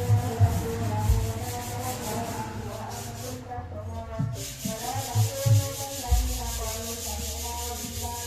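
Steel truck safety rails being sanded with sandpaper: a steady scratchy rasp that stops for a moment a little past three seconds in and comes back stronger. A faint tune with a wavering melody plays underneath.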